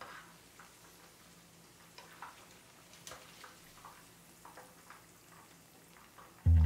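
Pakoras deep-frying in hot oil: a faint sizzle with scattered small ticks and pops as they are lifted out with a wire skimmer. Loud acoustic guitar music starts near the end.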